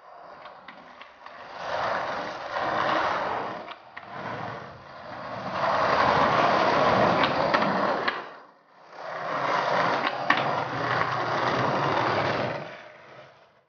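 Skateboard wheels rolling over a stone-paved street: a rough, rattling roll with small clicks, which swells and fades three times as the board passes.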